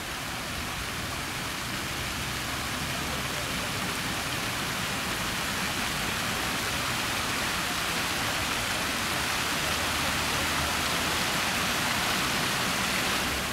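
Archibald Fountain's water jets splashing into the basin: a steady rushing hiss that grows slightly louder toward the end.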